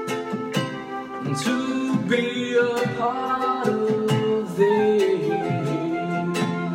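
A man singing a slow song while strumming a ukulele, with the strums coming about twice a second under held, gliding vocal notes.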